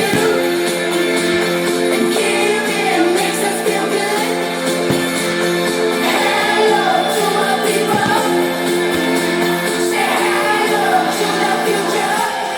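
Music with a sung voice over sustained chords.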